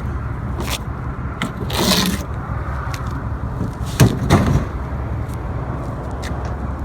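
Vehicle running with a steady low rumble, a brief scraping noise about two seconds in and a sharp knock with a short rattle about four seconds in.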